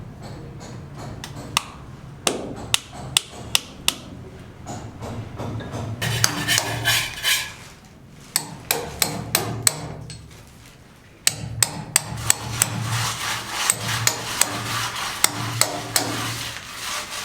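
Hammer blows on a building site, struck at irregular intervals, with stretches of steady rushing noise from about six to eight seconds in and again from about eleven seconds in.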